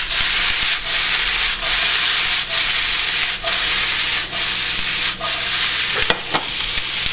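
Chopped cabbage and onion sizzling in bacon fat in a frying pan while the pan is tossed, the sizzle broken about once a second as the food lifts and lands. A few sharp clicks near the end.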